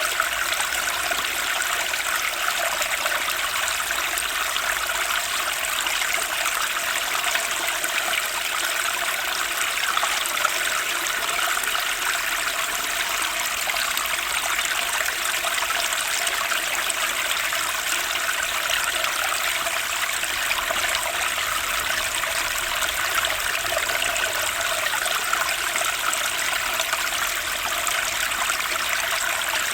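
Turbulent spring stream rushing and splashing over its bed, a steady even noise of water.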